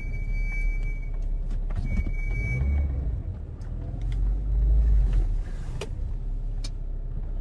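Saab 9-3 engine and road rumble heard inside the cabin as the car creeps forward in city traffic, swelling twice as it pulls away. Two short, high, steady squeals sound in the first three seconds, and a few light clicks come near the end.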